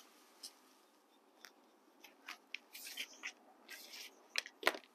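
Scissors snipping a thin cardboard template by hand, with the card rustling between cuts: faint, scattered cuts, with two sharper clicks near the end.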